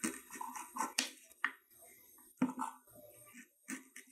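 Kitchen knife cutting through a raw green plantain into thick slices and knocking on a wooden cutting board: a few sharp knocks roughly a second apart, with softer scraping between them.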